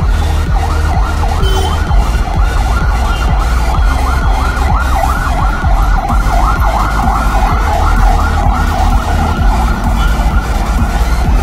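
Background electronic music with a fast siren-like warbling figure, about three or four sweeps a second, over a steady heavy bass.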